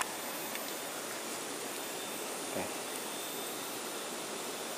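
Steady, even outdoor background hiss, with a faint knock about two and a half seconds in.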